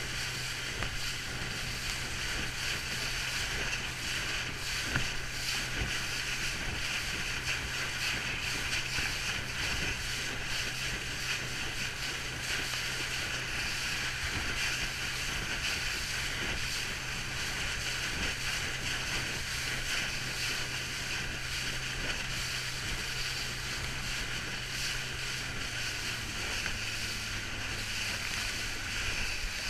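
A motorboat's engine running steadily under a hiss of wind and water rushing past the hull. Near the end the engine's low hum drops a little in pitch, as the boat eases off.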